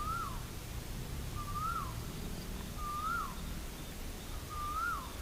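A bird repeating a short whistled call four times, about every one and a half seconds: each call rises briefly, then drops away quickly.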